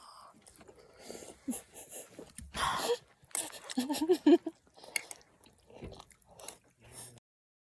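Close-up eating sounds of instant noodles: a loud noisy slurp about two and a half seconds in, chewing and small mouth clicks, and a short wavering hummed "mmm" about four seconds in. The sound cuts off abruptly near the end.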